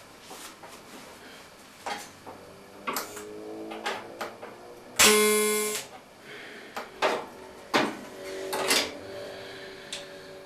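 Small stainless-steel sheet pieces knocking and clinking against each other and the bench as they are fitted together, with one loud ringing clang about halfway through and fainter metallic rings near the end.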